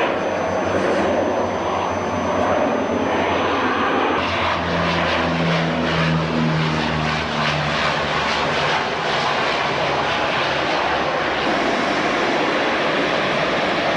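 Canadair amphibious water-bombing plane flying by, its propeller engines running with a loud, steady rushing noise. A low humming engine tone stands out from about four and a half to seven and a half seconds in.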